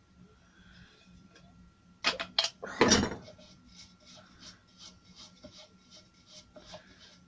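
Metal parts of a Devilbiss FLG5 gravity-feed spray gun and a spanner clinking on a bench: two sharp clicks about two seconds in, then a heavier clunk. After that comes a run of faint, quick, evenly spaced ticks while the paint cup is twisted at the gun's inlet.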